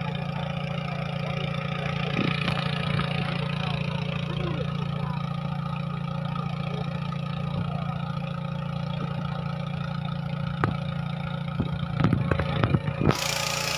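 A small engine running steadily at an even pitch, with a few loud knocks near the end.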